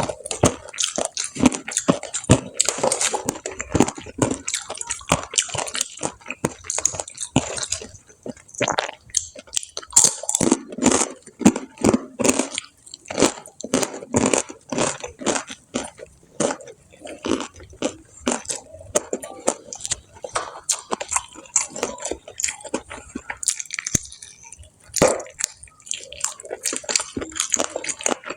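Close-miked crunching and chewing of fried food: a dense, irregular run of crisp bites and crackles, several a second, with wetter chewing between.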